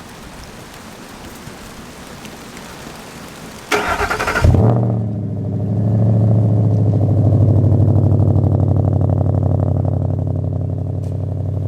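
Rain hiss, then a car engine is cranked by its starter for about a second and catches a little after four seconds in: a cold start. It settles into a steady fast idle that eases down slightly toward the end.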